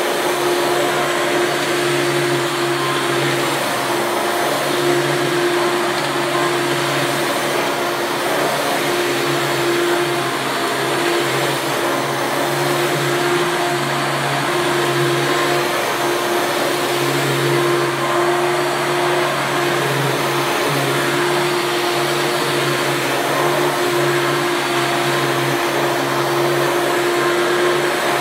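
Hoover Elite II upright vacuum cleaner running steadily, a motor hum over a wide rush of airflow. Its motor bearings are freshly greased, but a little bearing sound remains on one end, which the owner expects to go away with use.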